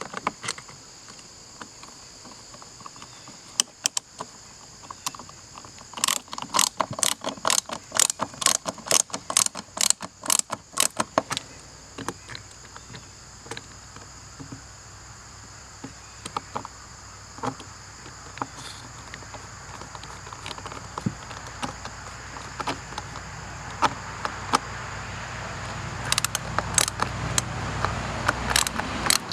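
Sharp metallic clicks and taps from working on an outboard remote control throttle box with a flathead screwdriver as its back cover is fitted on. A quick run of clicks comes about six to eleven seconds in, then scattered single clicks.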